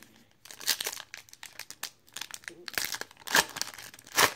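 Foil wrapper of a Panini Optic basketball card pack crinkling and tearing as it is ripped open by hand, a string of sharp crackles with the loudest ones in the second half.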